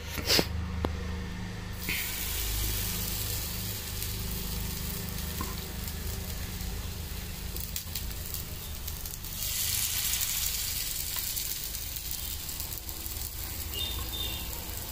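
Masala-coated pomfret pieces sizzling on a hot dosa griddle (tawa). The sizzle starts about two seconds in as the first piece goes down, and gets louder about nine seconds in as a second piece is added.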